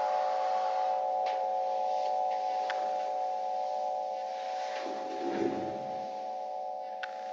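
Singing bowl ringing on, a sustained tone of several close pitches that slowly fades, heard over a video call. A few faint clicks and a soft low thump come about five seconds in.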